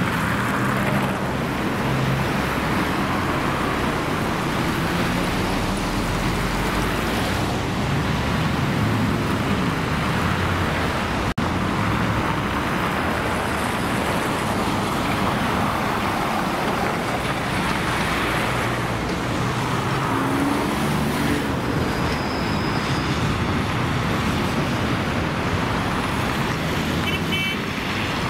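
City street traffic with trams running on the rails: a steady mix of car and tram running noise and low motor hum. There is a brief dropout about eleven seconds in, and a few short high beeps near the end.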